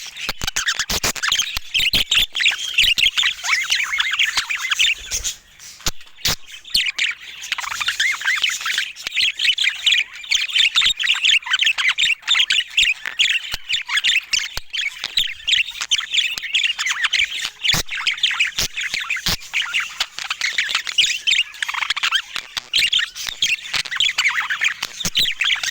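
Budgerigar chattering and warbling: a dense, continuous run of rapid chirps and squawks, broken briefly about five seconds in, with scattered sharp clicks.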